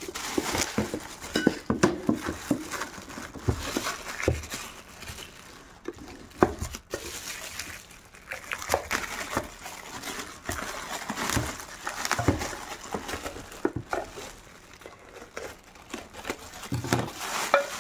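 Plastic wrapping crinkling and rustling as it is snipped with scissors and pulled off frying pans, with scattered clicks and light knocks.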